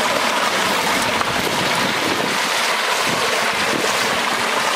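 Steady rushing hiss of floodwater running out of an overflowed pond and across the ground.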